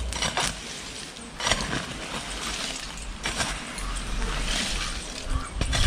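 Dirt and charcoal being worked over a smouldering charcoal kiln: a few sharp knocks and scrapes, with a hissing, rushing noise building in the middle as dirt is thrown on to put out flare-ups.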